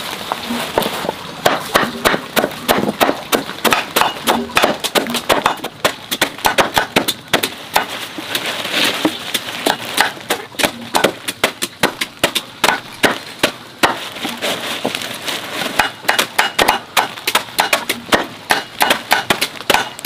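Rapid, uneven chopping: a blade strikes again and again into wood or plant material, about two to three blows a second with short pauses.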